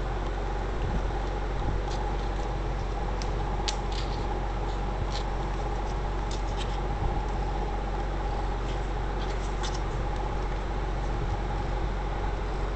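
Kitten purring with a steady low rumble, with scattered light clicks and rustles throughout.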